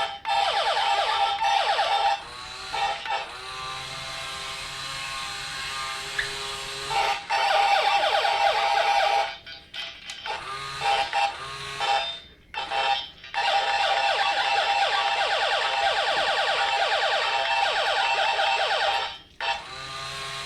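Emiglio toy robot's electronic sound effects from its built-in speaker: warbling, siren-like beeps and sliding tones in repeating phrases, broken by a few short pauses.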